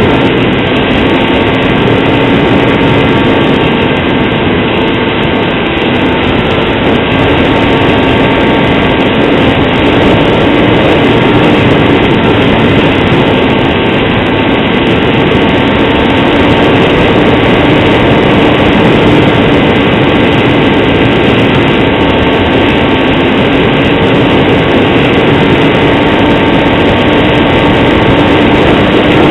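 Scratch-built foam RC plane's motor and propeller running steadily in flight, heard through the onboard camera's microphone as a loud, even drone mixed with wind rush.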